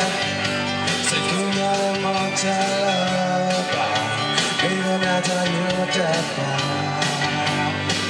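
A male singer singing live into a microphone over a rock band backing with guitar, amplified through a concert PA.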